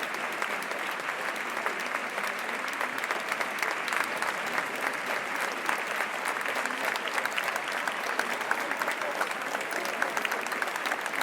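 A crowd applauding: many people clapping at once, steady and dense, with single sharper claps standing out more toward the end.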